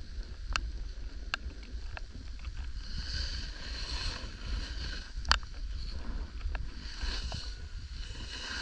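Snowboard sliding and scraping over snow, the hiss swelling in waves, with wind rumbling on the microphone. Sharp click-clack sounds come through several times, the loudest about five seconds in.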